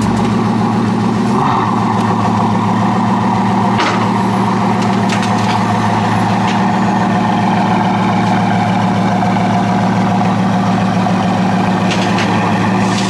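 Bugatti Veyron Super Sport's quad-turbocharged 8.0-litre W16 engine idling steadily.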